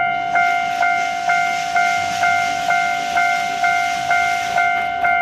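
A steam locomotive passing with a steady hiss of steam, which fades near the end, while a level-crossing bell rings about twice a second.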